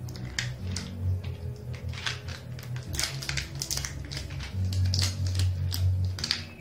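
Plastic shrink-wrap seal on a supplement bottle being picked at and peeled off by hand, a run of sharp crinkles and crackles; the seal is very tight. A low bass line of background music runs underneath.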